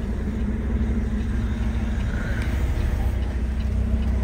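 Semi truck's diesel engine running, heard from inside the cab as a steady low drone that grows slightly louder toward the end.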